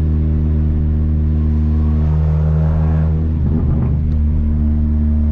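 Engine drone of a VW Gol 1.0 8V through a free-flowing HKS sport exhaust, heard from inside the car while cruising slowly. It is steady and low-pitched, with a brief swell of rougher noise about halfway through.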